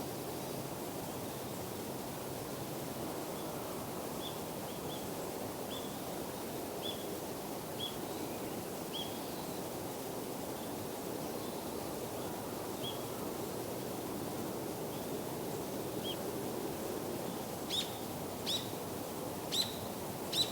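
Short, high single-note bird calls, spaced out in the first half, then four louder, sharper calls near the end, over a steady hum of outdoor background noise.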